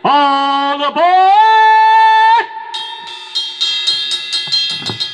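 Harmonica played into the vocal microphone over an electric blues-rock band, holding long, loud notes with an upward bend about a second in. It cuts off sharply after about two and a half seconds. Then a drum kit plays a run of quickening hits and cymbal strikes under sustained guitar and bass tones as the song winds down.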